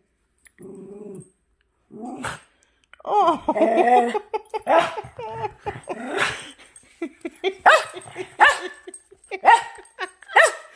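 Small dogs barking: a run of short, sharp barks and yips, coming more often in the second half.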